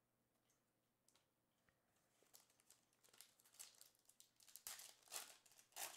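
A foil trading-card pack wrapper is torn open and crinkled by hand. The crinkles start a couple of seconds in and grow louder toward the end.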